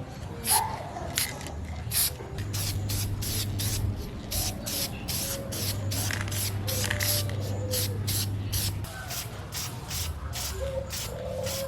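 Spray paint hissing out in short, repeated bursts, about two to three a second.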